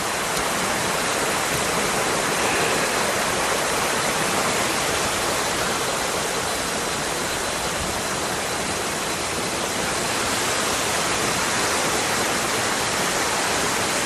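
Na Muang waterfall in heavy flow after heavy rain: a steady, loud rush of water pouring down over the rocks into the muddy stream.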